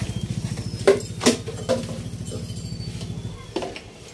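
A small engine running with a rapid, even pulsing beat that fades out about three and a half seconds in, with a few sharp knocks along the way, the first two about a second in being the loudest.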